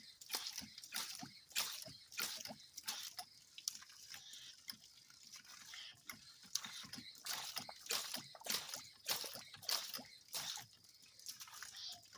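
Water pumped from a newly driven 2-inch well, spurting and splashing unevenly with air mixed in: the well is drawing air bubbles along with the water.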